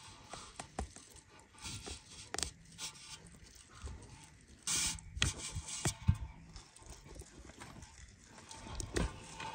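Handling sounds as a large stuffed fish is sewn shut with string and a skewer on a metal tray: scattered light clicks and taps, with a brief rasp about five seconds in.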